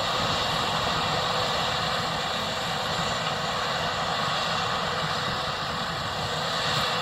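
Case IH 6140 combine harvester running steadily, a constant machine drone with no change in pitch or level.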